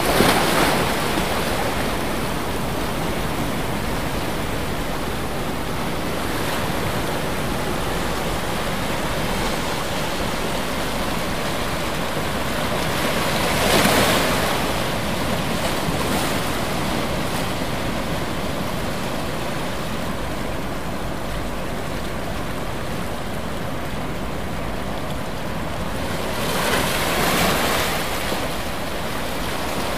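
Steady rushing water noise, swelling briefly about halfway through and again near the end.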